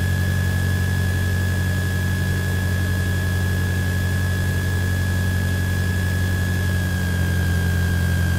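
Cessna 162 Skycatcher's four-cylinder Continental O-200 engine and propeller running steadily, heard from inside the cockpit: a loud, deep drone with a steady high whine above it.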